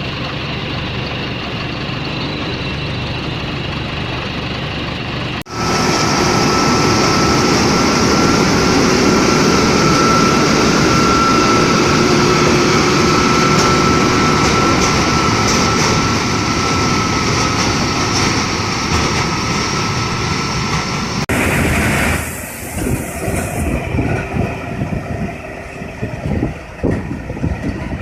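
Self-propelled corn harvester running: a steady drone of engine and machinery with a thin steady whine over it. The sound jumps abruptly about five seconds in and again about 21 seconds in, becoming uneven with scattered knocks and rattles near the end.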